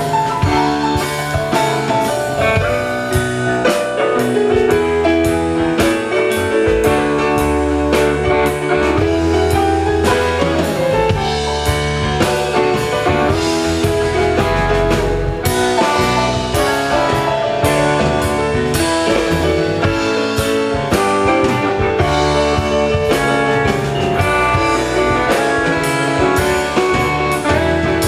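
Live rock band playing an instrumental passage: drum kit, electric guitars, bass guitar and keyboards, with no singing.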